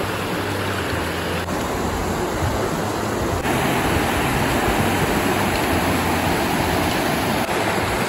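Mountain stream rushing over bedrock, a steady even rush of water that steps up a little about three and a half seconds in.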